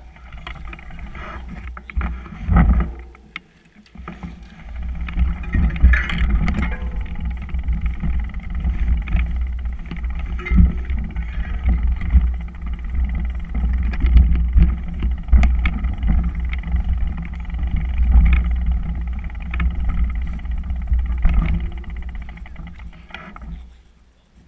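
Mountain bike rolling over a rough dirt trail, heard through a bike- or helmet-mounted action camera: heavy wind noise on the microphone with frequent knocks and rattles as the bike hits bumps. It drops briefly a few seconds in and fades away near the end.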